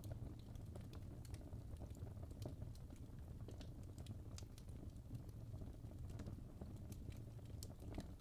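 Wood fire crackling in a fireplace: irregular sharp snaps and pops scattered over a low, steady rumble.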